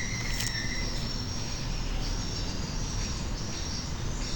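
Insects chirring steadily over a low background hiss, with a thin high tone held throughout.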